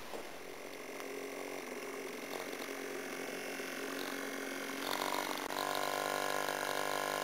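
Small 1 hp two-stroke outboard motor running steadily, a constant engine tone that grows louder and fuller about five seconds in.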